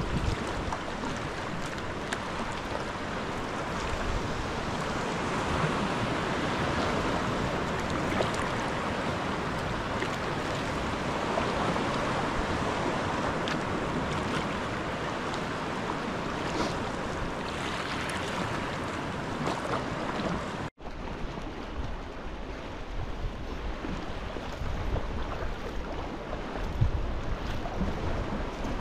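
Sea water lapping and sloshing around a sea kayak and washing over the rocks close by, with wind on the microphone. The sound drops out for an instant about two-thirds through, and after that a low wind rumble is stronger.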